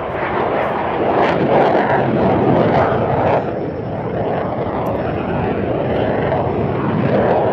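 Saab JAS 39 Gripen C fighter's single Volvo RM12 turbofan, a steady jet roar as the aircraft flies its display overhead, swelling louder about two seconds in and again near the end.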